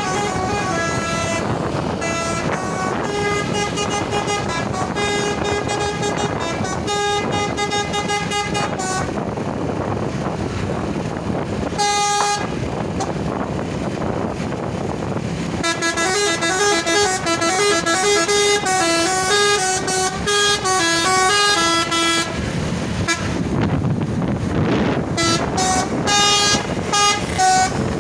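Tour bus "telolet" musical horn playing stepped, melodic tunes in several phrases: a long tune at the start, a single short blast about halfway in, another long tune a few seconds later, and more blasts near the end. The bus engine and road noise run underneath.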